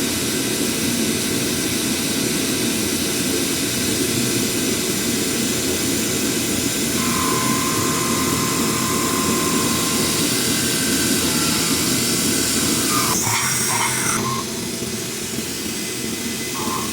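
Milling machine running steadily, with a whining tone that comes in about seven seconds in and lasts about three seconds; the sound changes and drops a little near the end.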